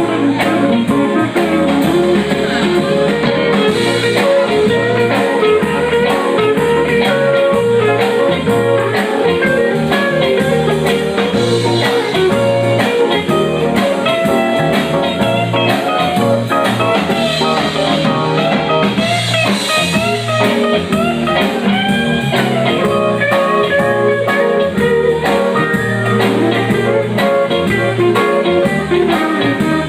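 Blues band playing an instrumental passage between sung verses: guitar carries the lead with bending notes over a steady bass and drum groove.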